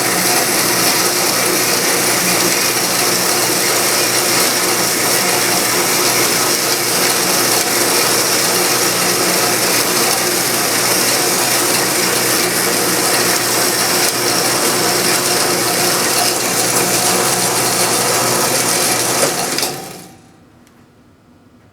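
Grizzly saw running at top speed, its blade cutting through a block of aluminium with a steady mechanical sound. It stops suddenly near the end.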